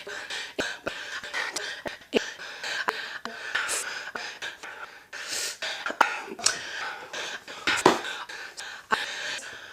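A woman breathing heavily through the mouth, one audible gasping breath after another, broken by short sharp clicks.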